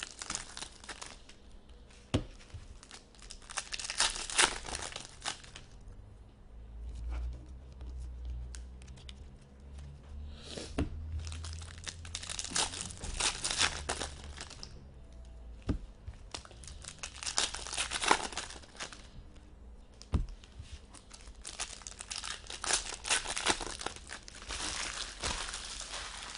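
Hockey card pack wrappers being torn open and crinkled by hand, in several bouts of crackling with short pauses between, plus a few sharp clicks from handling.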